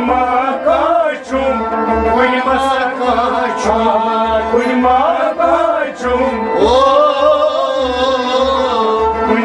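Kashmiri Sufi devotional song (kalam): a male voice sings a melodic, ornamented line, with one long held note about two-thirds of the way in. Held accompanying tones and a low drum beat about twice a second sound beneath it.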